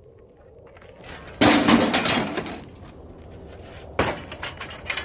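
A loud clattering crash of hard objects, as if something is dropped or breaks, about a second and a half in and lasting about a second. A single sharp knock follows about four seconds in.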